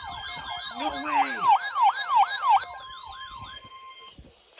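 Weather radio receivers sounding their alert: a fast electronic warbling siren, about three sweeps a second, over a steady tone near 1 kHz like the NOAA Weather Radio 1050 Hz warning alarm tone. The warble stops about two and a half seconds in and the steady tone about a second and a half later.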